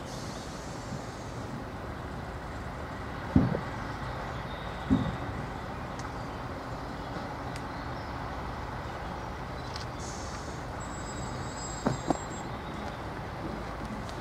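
Small diesel shunting locomotive idling steadily, with three sharp metallic clanks a few seconds apart.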